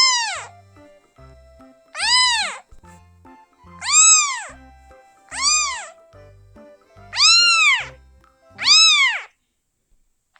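A kitten meowing six times, about every one and a half seconds, each meow rising then falling in pitch, over a low backing music track that stops near the end.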